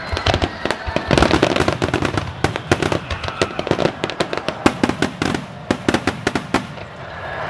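Fireworks display: a rapid, dense run of bangs and crackles from bursting shells, thinning out after about five seconds.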